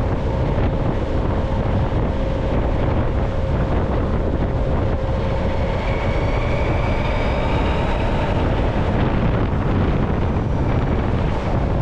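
Zero SR/S electric motorcycle being ridden at speed: wind rushes over the microphone in a steady low rumble, over which runs the steady whine of the electric motor and drivetrain. A fainter, higher whine rises slightly about halfway through.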